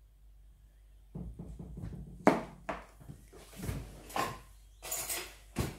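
Clicks and knocks of plastic dessert tubs, their lids and a spoon being handled on a table, starting about a second in; the loudest is a sharp click a little over two seconds in, followed by several softer knocks.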